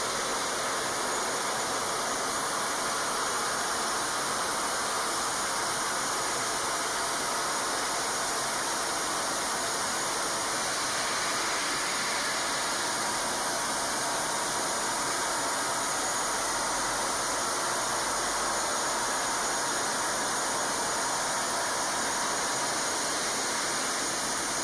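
Steady, even rushing hiss of a gear grinding machine working the teeth of a large double helical gear.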